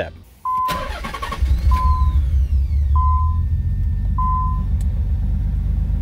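Nissan 300ZX's 3.0-litre V6 cranked on the starter and catching about a second in, then running steadily at idle after a cold start. A dashboard warning chime beeps four times at an even pace over the engine.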